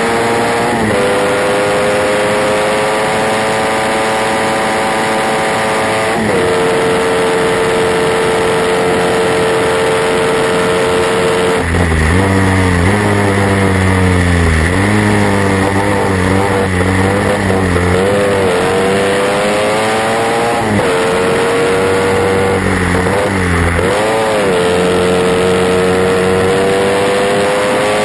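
Triumph Thunderbird 650cc parallel-twin engine of a racing sidecar outfit, heard onboard at full race pace. It pulls hard with its pitch climbing and drops sharply at upshifts about a second and six seconds in. Around the middle the pitch falls and wavers over a heavy low rumble as the outfit slows, then it climbs again with more gear changes near the end.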